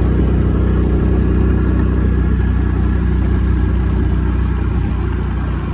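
Motor scooter's engine running steadily while being ridden along the road, a loud, even low drone.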